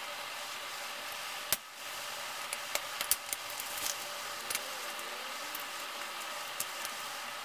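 Plastic LEGO pieces being handled and pressed together: scattered sharp clicks and light clatter over a steady hiss, the loudest click about one and a half seconds in and a quick run of clicks around three seconds.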